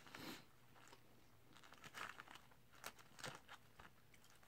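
A plastic fork scraping and digging through animal-style fries in a paper tray, the paper crinkling in a few short, faint rustles.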